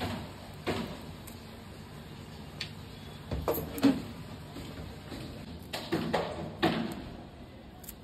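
Irregular knocks and light clatter of kitchen handling, a few sharp strikes spaced unevenly, loudest a little before halfway and again about two-thirds through.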